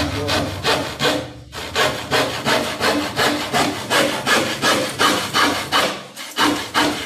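A handsaw cutting through a wooden board in steady back-and-forth strokes, about two to three a second, with a brief break about one and a half seconds in.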